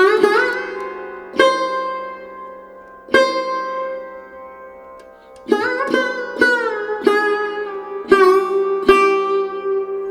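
Background music: a plucked string instrument in a sitar-like style, playing slow single notes that ring and bend in pitch over a steady low drone, the notes coming closer together in the second half.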